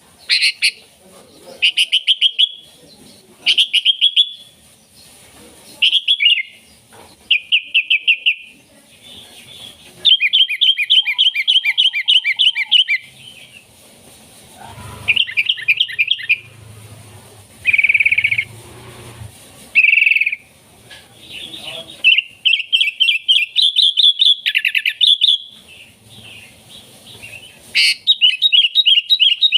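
Sooty-headed bulbul (kutilang) in full song: short bursts of rapid chattering notes every second or two, with a longer fast run of notes about ten seconds in.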